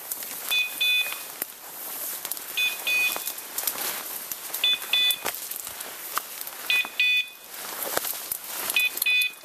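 A bird dog's beeper collar sounding short double beeps about every two seconds, over rustling and crackling of steps through brush.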